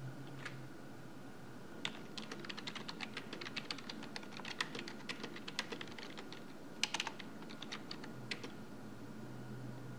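Typing on a computer keyboard: a quick, uneven run of key clicks starts about two seconds in, with a louder cluster of strokes near seven seconds, and stops shortly after eight seconds. A faint steady hum runs underneath.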